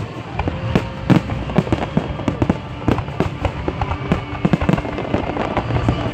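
Fireworks display going off, with many irregular sharp bangs and crackles, several a second.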